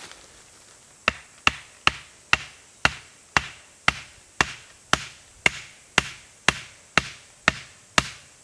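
Axe blows driving a wooden tent stake into the ground. The knocks start about a second in and come steadily at about two a second.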